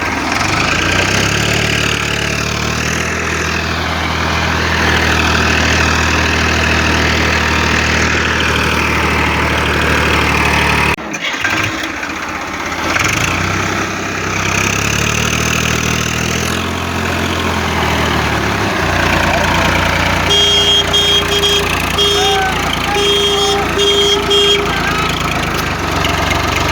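A vehicle engine running steadily, with an abrupt break about eleven seconds in before it carries on. Near the end, a string of short electronic beeps sounds over it.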